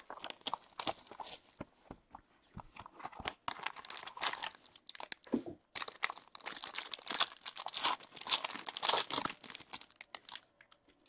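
Plastic packaging crinkling and tearing in bursts of crackles: shrink wrap is stripped off a hockey card box, then the card pack's shiny wrapper is crumpled and torn open, loudest in the last few seconds.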